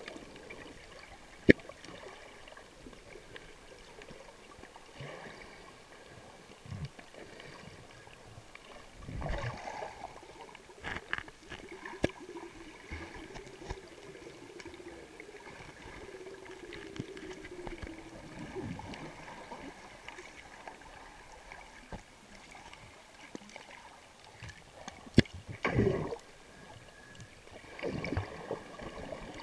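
Muffled underwater sound through a camera's waterproof housing: water moving, with a few bursts of splashy noise and several sharp clicks. A faint hum slides slowly down in pitch through the middle.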